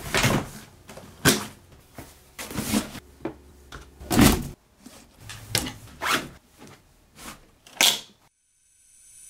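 Handling sounds of a Point 65 Boblbee hard-shell backpack: a series of irregular knocks, clunks and rustles as the plastic shell and its straps are moved, the loudest about four seconds in. A sharp click near the end as a strap buckle is fastened.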